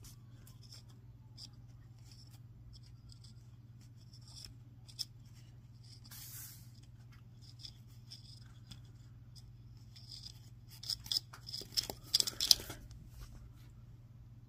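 Handmade paper model boxer-twin engine being handled and its paper crankshaft turned by hand: light paper rustles and clicks over a steady low hum, with a cluster of louder crinkling clicks about three-quarters of the way through.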